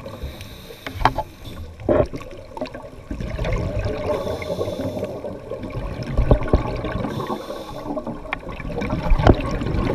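Scuba diver breathing through a regulator underwater. Three short hissing inhalations come a few seconds apart, with a rush of exhaled bubbles between them.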